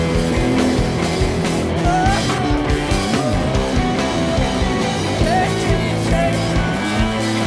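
Live rock band playing a song: electric guitars with bass and drums.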